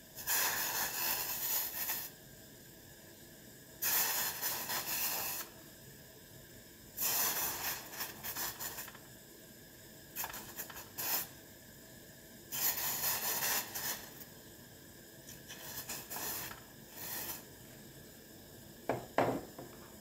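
A wooden spoon stirring undissolved sugar and water in a stainless steel saucepan, making gritty scraping strokes in bursts of a second or two, about every three seconds. There is a shorter, sharper sound near the end.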